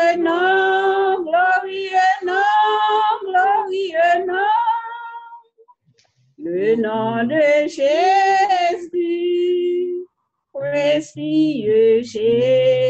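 A single voice singing a hymn unaccompanied, heard over a video call, in three long held phrases with short breaks about six and ten seconds in.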